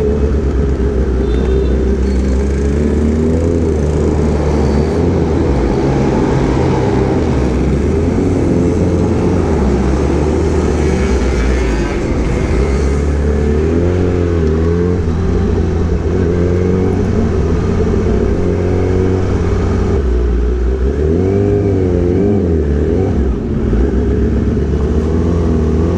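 Kawasaki ZX-10R's inline-four engine through an Arrow racing exhaust, running under way, its pitch rising and falling with the throttle several times, most clearly around halfway and again near the end.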